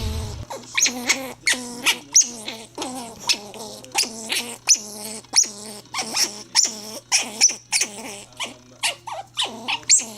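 An animal calling in a fast run of short, squeaky, yelping cries, about two to three a second, over a steady low hum.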